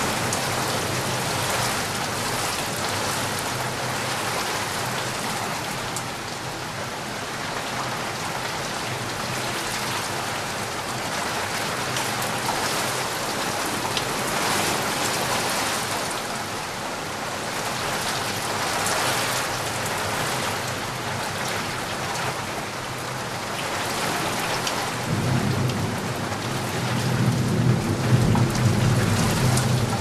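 Heavy rain pouring steadily, with a low rumble of thunder building about twenty-five seconds in and loudest near the end.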